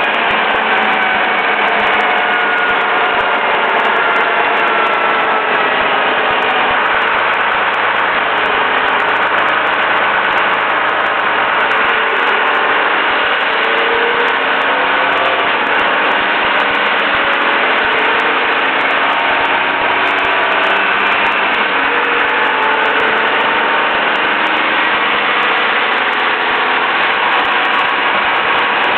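Leyland National single-deck bus's diesel engine running on the road, steady and loud, its pitch slowly rising and falling as the engine speed changes.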